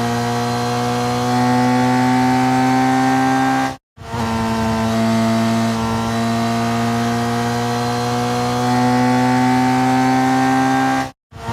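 Racing motorcycle engine held at high revs, a steady buzzing drone whose pitch creeps slowly upward. It cuts to silence for a split second twice, about a third of the way in and near the end, then starts again at the lower pitch.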